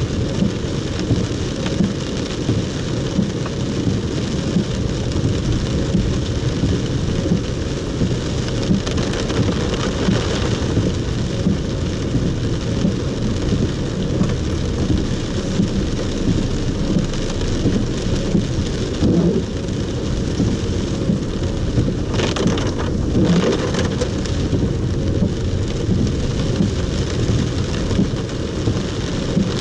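Heavy rain drumming on a moving car's roof and windscreen, heard from inside the car as a dense, steady patter over a low rumble of tyres on the flooded road. A few short louder swishes come about two-thirds of the way through.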